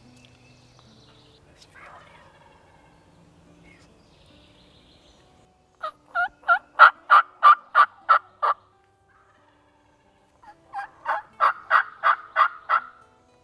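Turkey yelping: two runs of about a dozen quick, evenly spaced yelps, the first starting about six seconds in and the second about ten and a half seconds in, with a short pause between them.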